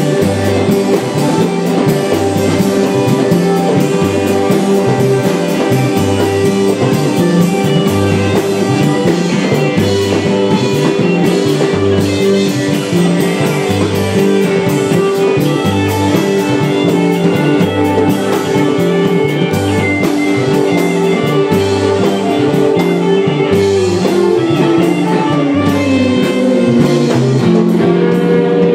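Live blues-rock band playing: electric guitars, bass and drum kit over a steady beat, with a descending run of held notes near the end.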